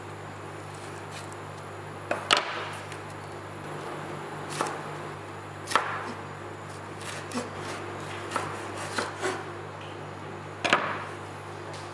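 Chef's knife slicing a red bell pepper into strips on a wooden cutting board: irregular knocks of the blade on the board, starting about two seconds in, over a steady low hum.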